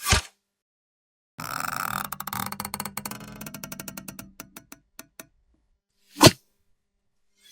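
Bow-and-arrow sound effects: a short arrow whoosh at the start, then a run of rapid creaking clicks that slows and fades over about four seconds, then a second arrow whoosh near the end.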